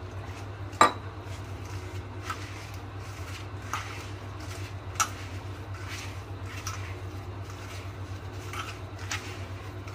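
Hand mixing and kneading damp semolina and sugar with milk in a steel bowl: soft, crumbly squishing and rustling, with a sharp tap against the bowl about a second in and another about five seconds in, over a steady low hum.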